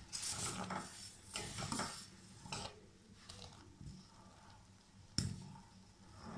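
Steel ladle stirring thick corn kheer in a stainless steel pan, with irregular scrapes and taps of metal against the pan, and one sharp metal clink about five seconds in.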